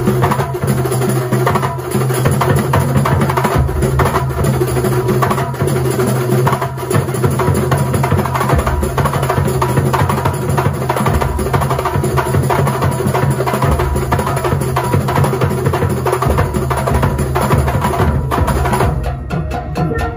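Kuntulan music played live: dense, fast drumming over a steady low bass, carrying on without a break and thinning out near the end.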